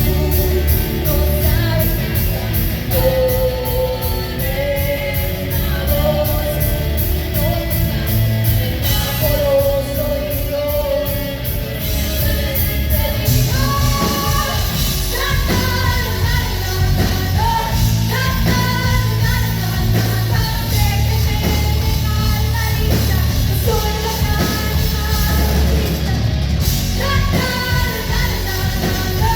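Live rock power trio playing: electric guitar, bass and drums under a female lead vocal sung in Spanish. The vocal line climbs higher about halfway through.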